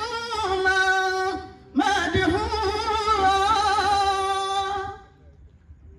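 A man's solo Quranic recitation, chanted melodically into a microphone: two long held phrases with a wavering, ornamented pitch and a short breath between them, ending about five seconds in.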